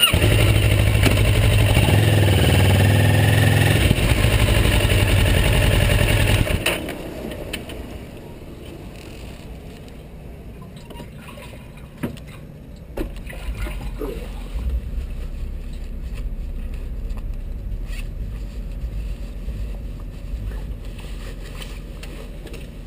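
Motorcycle engine running loudly for about six seconds as the bike pulls forward, then dropping to a low steady idle with a couple of faint clicks.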